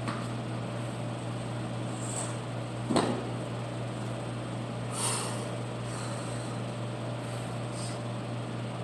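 Steady low hum of a gym room, with one sharp knock about three seconds in and a few soft scuffs, like shoes on a rubber floor mat.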